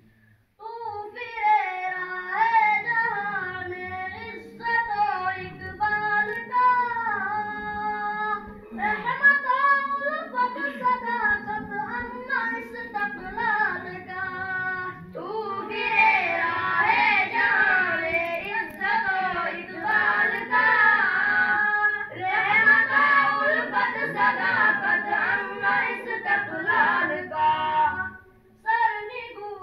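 Islamic devotional chanting in a mosque: voices sing a melodic recitation in long phrases with short breaks, growing fuller and louder about halfway through.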